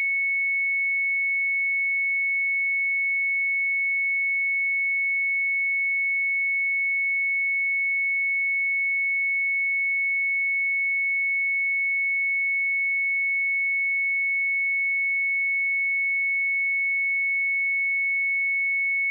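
A pure 2208 Hz sine-wave test tone, held steady at one high pitch and constant loudness.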